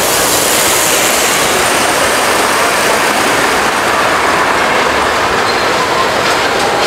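Standard gauge tinplate model trains running on three-rail metal track: a steady, loud rumble and rattle of metal wheels on the rails.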